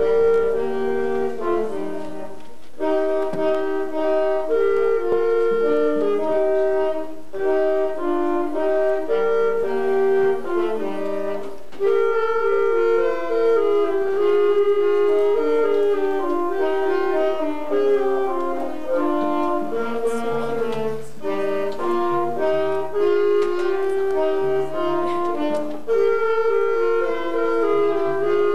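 A single-reed woodwind instrument, played by a child, carries a melody of held notes. A few lower notes sound underneath about two-thirds of the way through.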